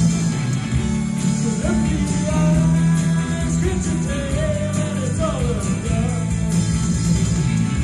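Rock band playing live: electric guitars and bass in a steady, dense rock song, with a voice singing gliding lines over it.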